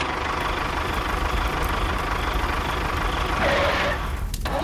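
Tractor engine running steadily with a low rumble. A brighter, higher sound joins for about a second near the end.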